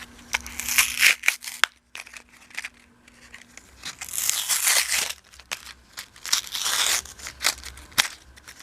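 Plastic lure packaging being crinkled and torn open by hand, in several bursts of crackling with sharp clicks and a brief lull partway through.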